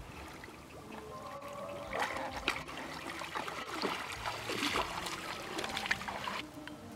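Sambar deer wading in shallow pond water, their legs splashing and sloshing through it, busiest from about two seconds in until it dies down near the end.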